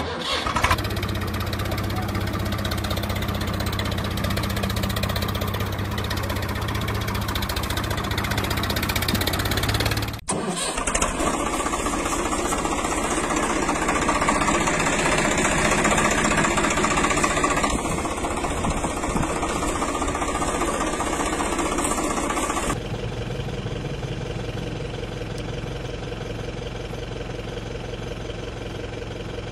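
Engine sound of a tractor starting and running. It cuts off abruptly about ten seconds in and gives way to another engine sound, which changes again about twenty-three seconds in to a quieter, steadier engine.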